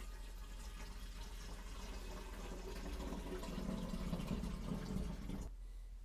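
Filtered water pouring from a pitcher into the plastic water tank of a Kyvol Vigoair HD3 ultrasonic humidifier, a steady trickle into the tank's filler opening that stops about five and a half seconds in.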